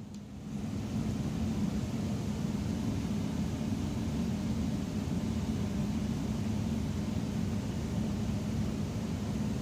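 Bosch car speaker fed mains-frequency AC from a doorbell transformer through a resistor, giving a steady low buzzing hum. The hum comes up within the first second and then holds level.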